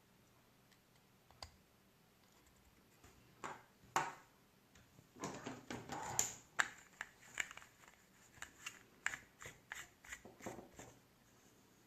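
Irregular light clicks and short scrapes of small hard parts being handled, starting a few seconds in and coming in quick clusters until near the end.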